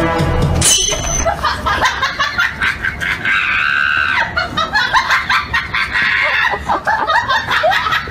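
People laughing and shrieking, with a sustained high-pitched shriek a little past the three-second mark. Background music stops about half a second in, followed by a brief high whistle.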